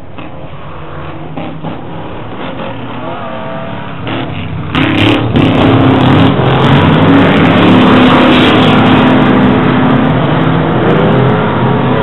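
A pack of short-course off-road race trucks racing together, many engines revving at once. The sound builds as the pack approaches and turns suddenly loud about five seconds in as the trucks pass close by.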